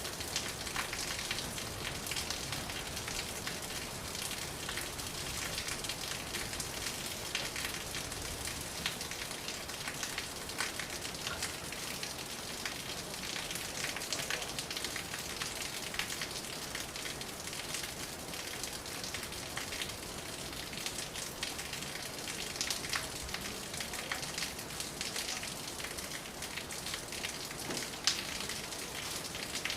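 Steady rain falling: a dense even hiss dotted with many sharp ticks of individual drops.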